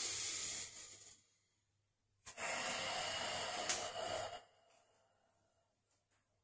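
A man breathing deeply, two long audible breaths: one about a second long at the start and one about two seconds long midway through.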